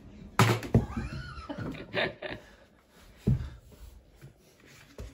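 A toddler's high-pitched squeals and babble, mixed with a few sharp knocks and thumps, the loudest about half a second in.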